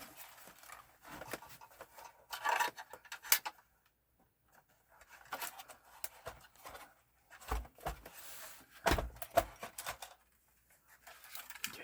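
Hands handling PlayStation 4 console parts during a teardown: scattered clicks, rubbing and light plastic-and-metal knocks, with two heavier thumps about seven and a half and nine seconds in.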